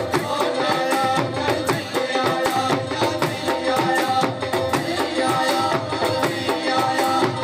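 Live Punjabi folk music: a dhol drum beaten in a fast, even rhythm with a jingling tambourine, and a voice singing through a microphone over it.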